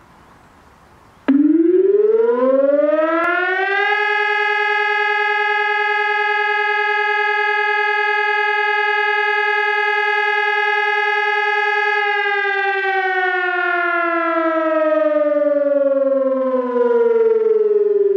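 HES 1200 electronic siren sounding the German fire alarm signal (Feueralarm) in a test: its tone starts about a second in, rises in pitch for about three seconds, holds steady for about eight seconds, then slowly falls.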